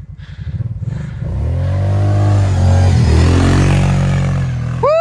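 An ATV engine at full throttle, growing loud as it charges up and passes close by, its pitch rising as it nears and dipping as it goes past about three seconds in. Right at the end a person cries out.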